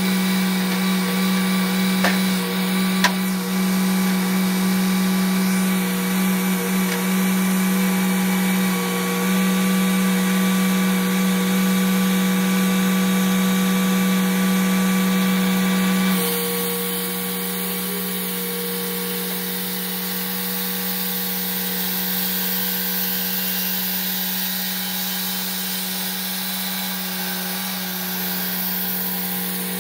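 Clarke 350 XP portable band sawmill running steadily as its saw head works along a log, an even engine hum with a whine of the blade over it. There are two sharp clicks about two and three seconds in. About halfway through the sound changes abruptly and becomes somewhat quieter.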